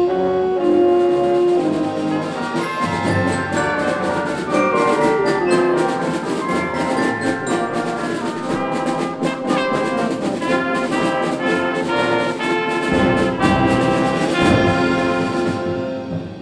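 High school concert band playing a holiday piece: brass with percussion, the music stopping about a second before the end and dying away.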